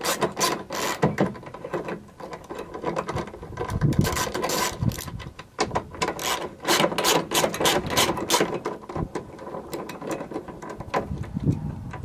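Socket ratchet wrench clicking in runs of rapid clicks, with short pauses, as two 10 mm bolts are backed out of a quarter-window latch bracket.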